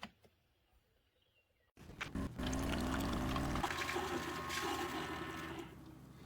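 Cuisinart single-serve pod coffee machine brewing. After near silence its pump starts humming suddenly about two seconds in, then water pours and hisses, and it drops to a quieter hum near the end.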